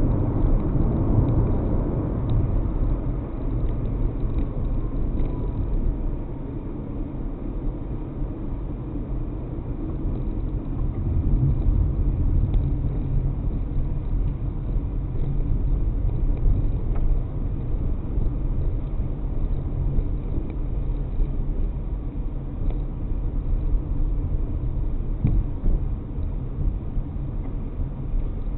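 A car driving on city roads: steady low rumble of the engine and tyres, with a faint falling whine in the first few seconds.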